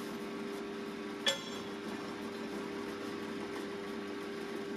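Electric drill motor running steadily at a constant pitch, with one sharp metallic clink about a second in.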